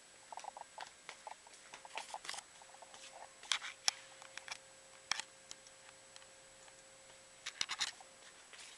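Handling noise from a handheld camera being swung around: scattered sharp clicks and scratching in irregular clusters, over a faint steady hum.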